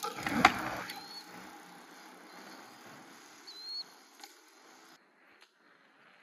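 Nireeka Mega fat-tyre electric bike riding off after a wheelie: a knock about half a second in, then the tyre and motor noise fading away over about four seconds, with two short high chirps.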